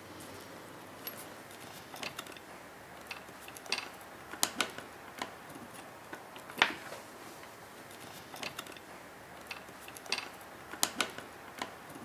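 Scattered sharp clicks and light knocks of cut glass pieces and metal came strips being handled and fitted together on a workbench, the loudest about six and a half seconds in.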